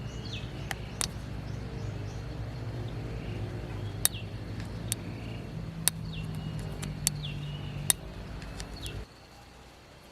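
A steady low engine hum that cuts off abruptly about nine seconds in, with birds chirping and a few sharp clicks over it.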